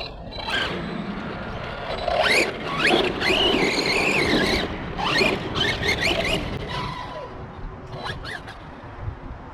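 Big Rock RC monster truck driving hard: a high-pitched electric whine and squeal that sweeps up and down in pitch, with several loud swells as it accelerates and brakes. A rumble of the running gear sits underneath.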